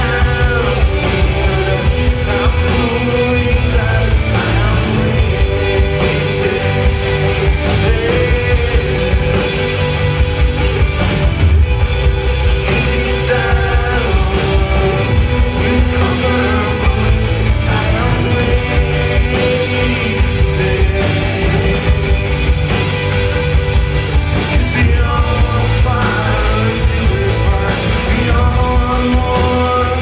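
Rock band playing live: electric guitars, bass guitar and drums, with a man singing at times.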